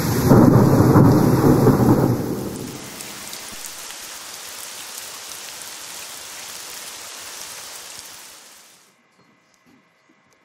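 Thunderstorm sound effect: a heavy rumble of thunder over loud rain, then steady rain alone, which fades out around eight or nine seconds in.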